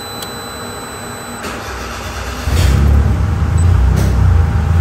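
Turbocharged 1.0-litre three-cylinder engine of a Perodua Viva being started, catching about two and a half seconds in and running at a loud, even idle.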